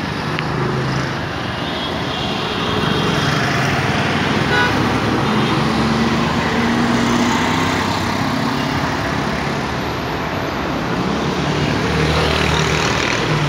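City road traffic: cars, a van and motorcycles passing close by, their engines and tyres making a steady noise, with horns tooting faintly now and then.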